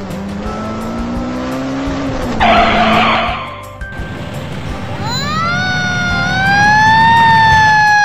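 Cartoon sound effects: a car engine's low hum rising in pitch, then a loud rushing burst lasting about a second from the car catching fire. About five seconds in, a fire-engine siren winds up with a rising whine and settles into a slowly wavering wail. Background music runs underneath.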